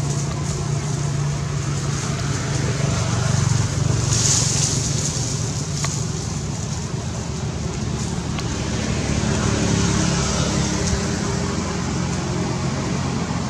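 Steady motor-vehicle traffic noise: a continuous low engine hum with a swell of high hiss about four seconds in.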